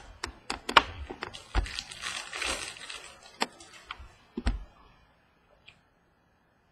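Trading cards being handled: a quick run of clicks and taps as the cards are flicked through, a rustle lasting about a second and a half as they slide against each other, then a thump about four and a half seconds in, after which it goes quiet.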